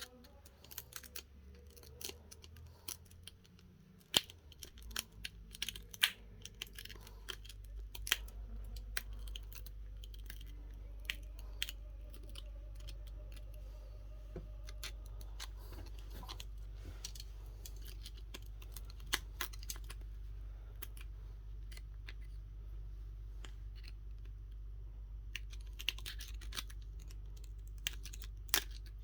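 Small hand tools clicking and scraping against a phone's glass and frame during a back-glass repair, with sharp taps coming thick in the first several seconds and again near the end. A low steady hum starts about five seconds in and keeps going.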